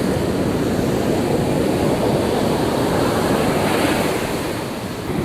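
Sea surf rushing steadily onto the beach, rough with heavy waves, with wind buffeting the microphone.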